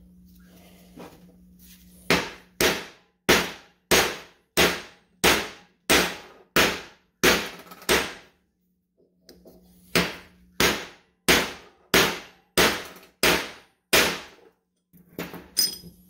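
Steel hammer blows on a 1-5/8-inch impact socket used as a driver, seating a frozen new bearing race into a front wheel hub. The blows come at an even pace of about three every two seconds, each with a short metallic ring: about ten, a pause of about two seconds, then about seven more.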